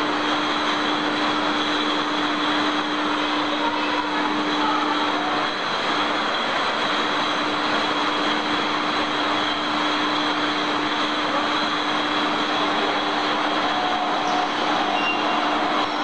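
Steady industrial machinery noise: an even hiss with a constant low hum tone that briefly drops out about six seconds in.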